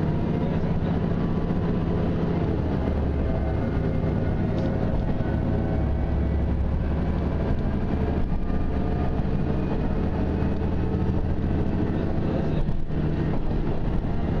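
Diesel railcar running along the line, heard from inside the passenger cabin: a steady low drone of the engine and running gear.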